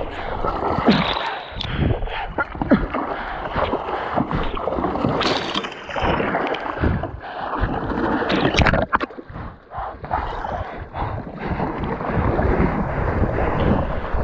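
Water splashing and sloshing right at the microphone as a person moves through flooded shrubs, with irregular knocks and scrapes from branches and gusts of wind on the microphone.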